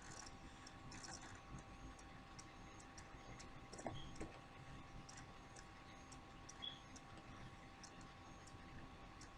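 Near silence: faint room tone with light ticking clicks at a fairly regular pace and a faint steady whine.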